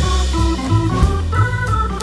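Background music: a keyboard melody of short stepping notes over a bass line.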